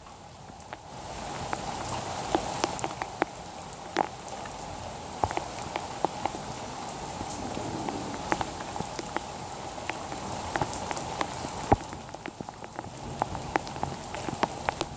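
Heavy rain falling steadily, with many sharp drop hits on surfaces close to the microphone. The rain swells about a second in and eases a little near the end.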